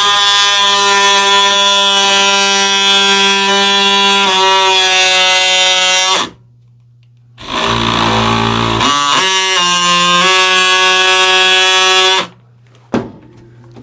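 Oscillating multi-tool running under load as it mortises a latch recess into a wooden door edge. It makes a steady, high whine in two runs of several seconds, with a short stop between them, and the pitch wavers as the blade bites.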